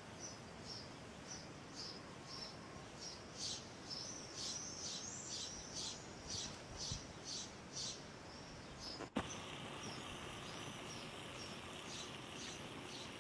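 Small bird chirping over and over, two or three short high chirps a second. A single sharp click comes about nine seconds in, and after it the chirping goes on more faintly.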